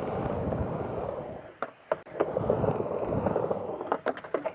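Skateboard wheels rolling across a vert ramp, rising and falling as the board rides the transitions. About two seconds in the sound drops briefly to a lull, then picks up again. A few sharp clacks of the board come about 1.5 seconds in and near the end.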